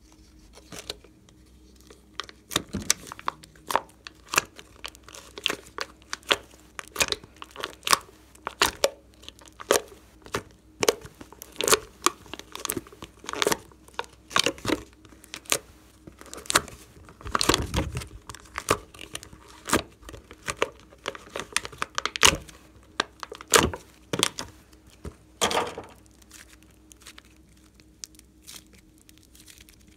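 Thin clear plastic blister packaging being handled and peeled away, crinkling and crackling in quick irregular snaps. It goes quiet a few seconds before the end.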